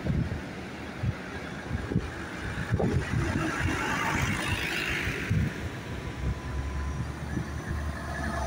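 Farm tractors' diesel engines running as a convoy drives past. The engine noise swells as one tractor passes close about four to five seconds in, then a steady low drone follows as the next tractor approaches.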